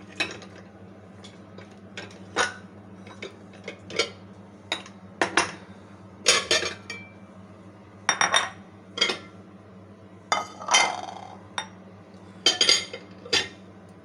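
Steel kitchen bowls, pots and utensils clinking and knocking together in about fifteen irregular strikes, some ringing briefly, with one longer clattering rattle a little before the end, over a faint steady low hum.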